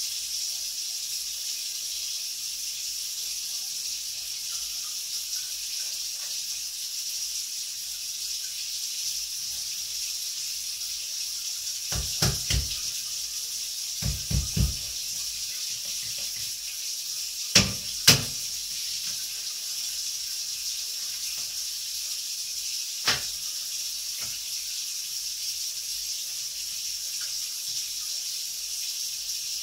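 Scattered knocks of a kitchen knife on a cutting board over a steady hiss. They come in small clusters around the middle, the loudest two close together just after, and a single knock later.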